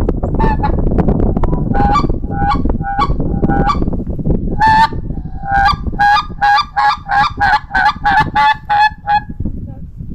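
Goose honking: a string of short honks, spaced out at first, then coming quickly at two or three a second before stopping about nine seconds in. A steady low rush runs underneath.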